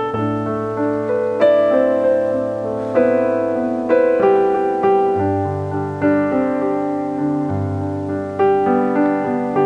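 Background piano music: a slow melody of struck notes fading after each strike, over held low bass notes.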